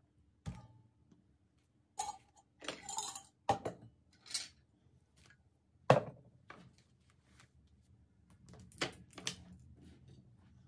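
Tableware being handled: scattered clinks and knocks of cups and dishes being picked up and set down, the loudest knock about six seconds in.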